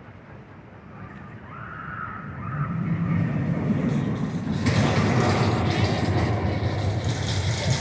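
Runaway Mine Train, a steel mine-train roller coaster, running through the trees: its train rumbles and clatters along the track, growing louder from about a second in and loudest from about five seconds on.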